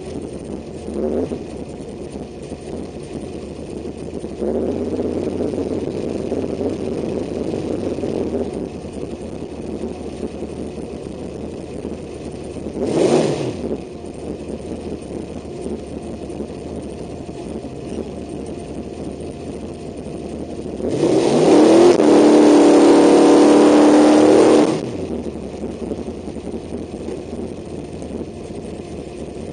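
Carbureted engine of a 1989 Chevrolet S-10 drag truck, heard from inside the cab: idling with a short blip and a quick rev that rises and falls, then revved hard and held at high revs for about four seconds in a burnout before dropping back to idle.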